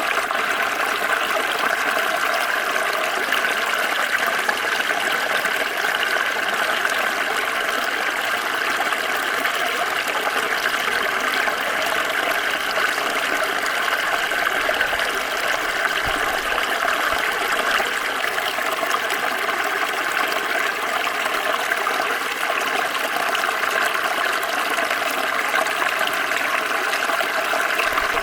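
Small stream flowing: a steady, unbroken rush and babble of water.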